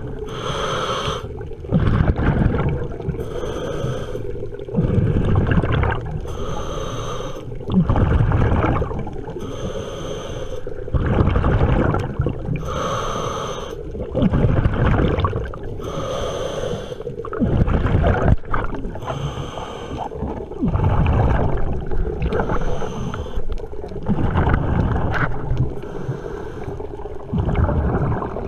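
Scuba diver breathing through a regulator underwater: a hissing inhale, then a rumbling burst of exhaled bubbles, repeating about every three seconds. A steady hum runs underneath.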